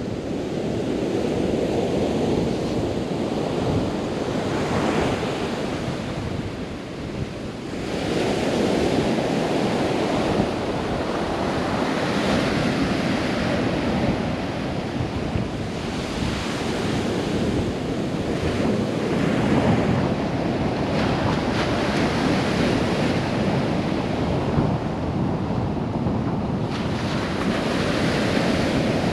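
Surf breaking on the beach, swelling and easing every few seconds, with wind buffeting the microphone. It gets abruptly louder about eight seconds in.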